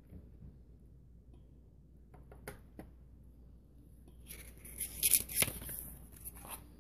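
A few light clicks of a plastic cassette case being set down on a wooden table, then about two seconds of paper rustling and crinkling as printed inserts are handled, loudest in the middle.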